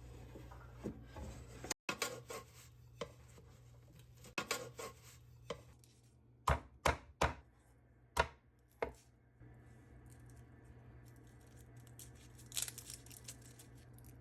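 Knife chopping vegetables on a cutting board: irregular light cuts, then a run of about five sharper strokes about halfway through, then lighter cutting again.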